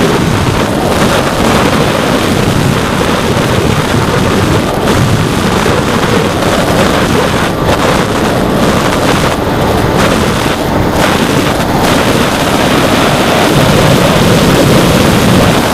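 Loud, steady wind rush buffeting the microphone of the 808 #16 keychain camera on a Lanyu Raptor FPV plane in flight, with the Turnigy brushless outrunner motor and 8-inch propeller mixed into the noise. The upper hiss briefly drops out a few times in the middle.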